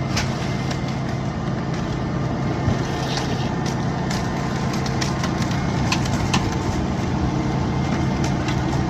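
Bucket truck's engine idling steadily, with a few faint clicks and knocks on top.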